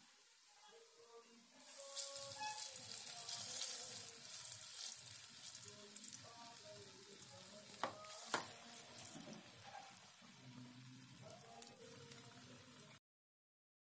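Hot oil sizzling as balls of ripe palm-pulp batter deep-fry in an aluminium kadai. The sizzle grows louder about two seconds in and has a couple of sharp clicks near the middle. It cuts off abruptly near the end.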